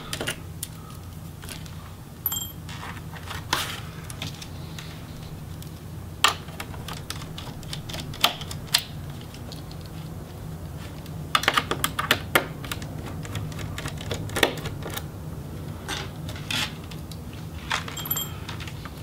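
Small screwdriver and little screws clicking and rattling against a laptop's metal hinge brackets and plastic case as the hinge screws are backed out. The clicks are scattered, with a quick run of them a little past halfway, over a low steady hum.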